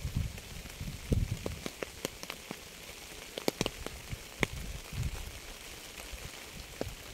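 Rain falling on a hard surface: individual drops landing as sharp, irregular taps over a faint hiss, with a few low, dull thuds.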